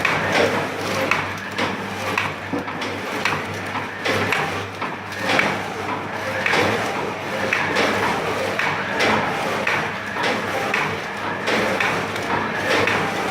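Four-side-seal granule sachet packing machine running, its mechanism knocking in a regular cycle a little faster than once a second over a steady hum.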